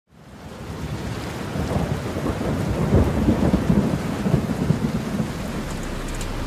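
Low rumbling noise with a rain-like hiss, fading in from silence at the start and swelling to its loudest about three seconds in.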